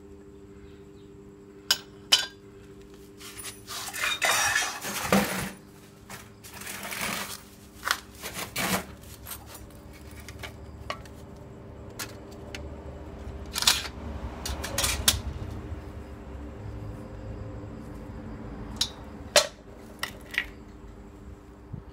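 Small metal parts clinking and being handled, with sharp scattered metallic clicks and two longer scraping stretches about four and seven seconds in, over a steady faint low hum.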